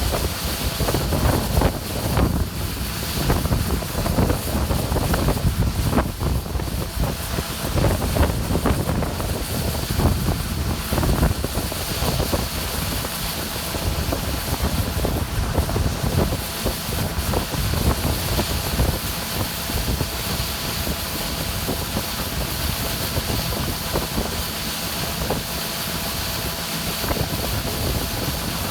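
Heavy harvest machinery running steadily, with wind buffeting the microphone.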